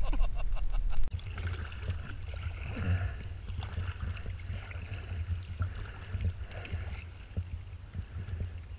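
Music cuts off about a second in. After that comes a kayak being paddled through shallow water: paddle blades dipping and water lapping at the hull, with wind rumbling on the microphone.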